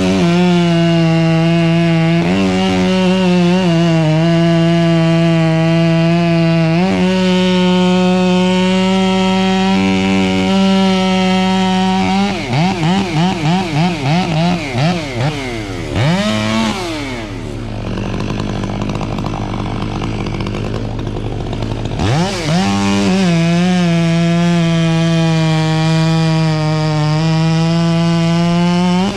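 Gas chainsaw cutting wood at full throttle, its pitch sagging under load. About twelve seconds in, the throttle is blipped in quick pulses. The saw then drops to idle for about five seconds and is revved back up to full speed to cut again.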